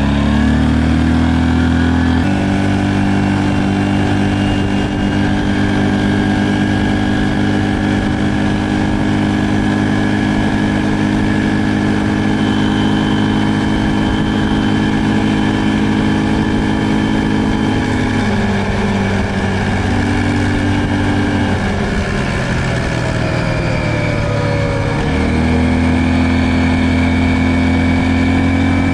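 Stels Leopard ATV engine running under way through its CVT, holding a steady pitch. The engine rises about two seconds in, drops off about two-thirds of the way through as the machine slows, and picks up again near the end.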